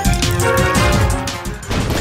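Background music with a steady beat, breaking off near the end into a dense, even noise.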